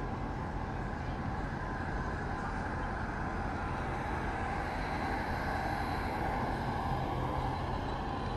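HO scale model train running on the layout: a steady rumbling hum that swells slightly a little past the middle.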